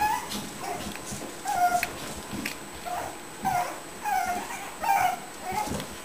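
Puppies whimpering and yipping: short, high calls about one or two a second, several of them falling in pitch.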